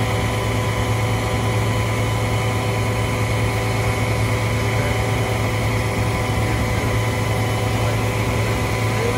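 Aerial ladder fire truck's diesel engine running steadily at raised revs to drive the ladder's hydraulics, a loud even drone with thin steady whining tones above it; it steps up in level right at the start.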